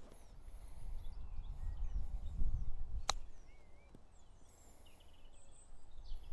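Wind rumbling on the microphone outdoors, with small birds chirping now and then and a single sharp click about three seconds in.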